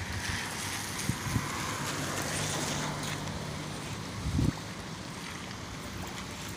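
Street ambience: wind rumbling on the microphone over a steady hum of traffic, with one louder wind bump about four and a half seconds in.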